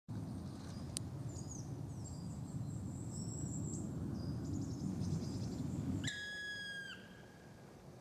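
Low rumbling noise with small birds chirping faintly high above it. About six seconds in the rumble stops and a single long drawn-out call rings out for nearly a second, dropping in pitch at its end: the long call of a black woodpecker.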